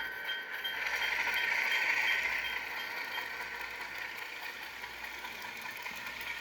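Rapido RSC-14 HO scale locomotive's DCC sound decoder playing diesel engine sound as the model pulls away, swelling for the first couple of seconds. The locomotive bell rings about three times a second until about three seconds in.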